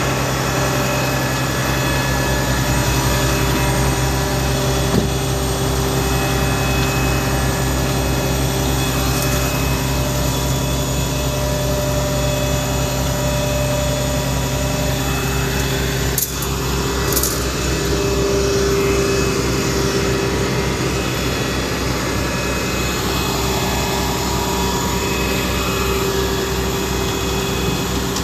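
Diesel engine of a UD Quester CWE 280 concrete mixer truck running steadily close by: a low, even hum with a steadier higher tone over it, dipping briefly a little past halfway.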